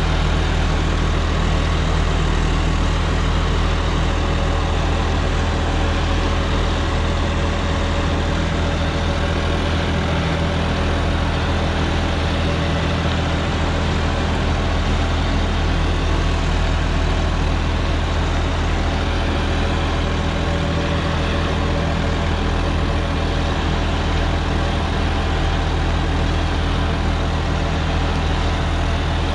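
John Deere 5405 tractor's diesel engine running steadily under load in second gear, its PTO driving a 10-foot rotavator tilling the soil.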